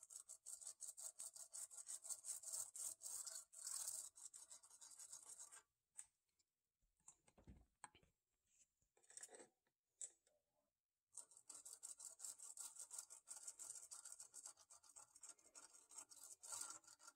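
Quiet, rapid back-and-forth scrubbing of a stiff brush on the solder side of a circuit board, wet with alcohol to wash off solder flux. The scrubbing stops for several seconds midway, then starts again.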